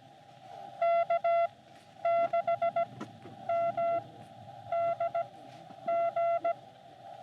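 Morse code (CW) tones from a Xiegu X6100 ham radio transceiver: a single-pitched beep keyed on and off in short and long elements, in quick groups about once a second, over a steady narrow hiss of filtered band noise.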